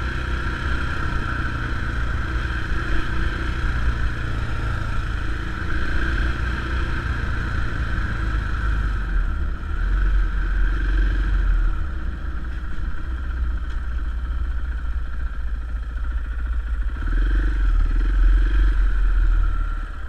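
Engine of a small off-road vehicle running steadily as it rides a dirt forest road, with clatter from the rough surface. The engine note shifts a couple of times and is louder for a stretch near the end.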